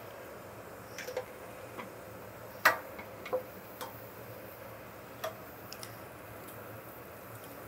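Eggs being cracked against a stainless steel pan and dropped into oil: a series of sharp taps and shell cracks, the loudest a little under three seconds in.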